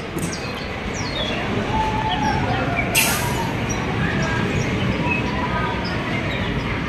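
Steady din of a busy indoor amusement-park ride: many people's voices mixed with ride noise, with a sharp click about three seconds in.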